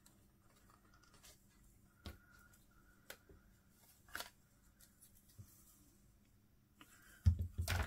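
Faint, scattered clicks of small cardstock die-cut pieces and tools being handled at a craft table, with a louder knock and rustle near the end.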